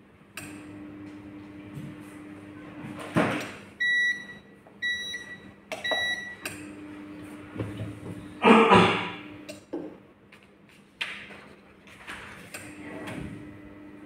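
Heat press machine giving off a steady buzzing hum that comes and goes in spells of a few seconds, the noise problem being shown. The controller beeps three times, about once a second, and the press handle and platen clunk loudly twice as the handle is worked.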